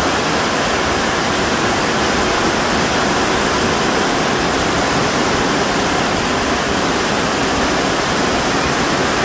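Heavy downpour of rain, a loud, steady rushing hiss with no let-up, as water pours onto the garden and streams off the edge of a sheet-metal patio roof.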